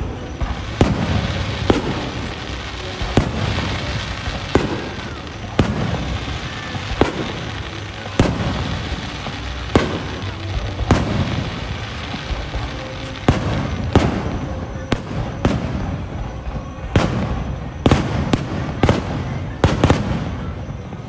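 Fireworks display: aerial shells bursting with a sharp bang about every second, over a continuous low rumble and crackle. The bangs come faster and closer together near the end.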